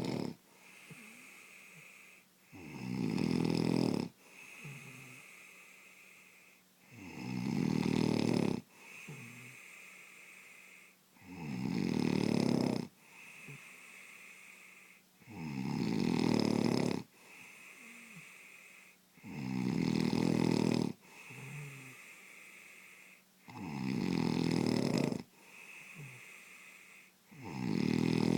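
A sleeping person snoring heavily, with one loud, rasping snore about every four seconds, each lasting a second and a half to two seconds, and softer breathing in between.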